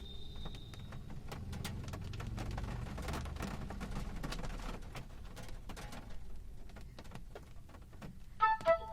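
Monsoon rain falling and dripping in many small ticks over a low, gusting wind rumble. Near the end a short, loud pitched call drops in pitch and holds.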